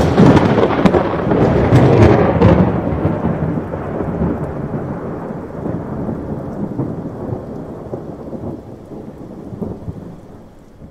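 Thunderclap that breaks with a loud crackle for about two seconds, then rolls on as a low rumble that slowly fades away.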